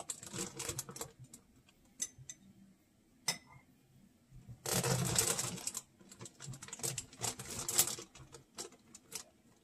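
Plastic bag rustling and a spoon clicking and scraping as oyster mushroom spawn is scooped out of the bag, with a stretch of dense rustling about five seconds in.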